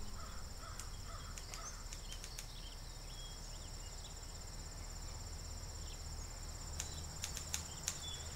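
Field insects trilling steadily in two high pitches, with a few brief faint chirps and scattered soft clicks over them.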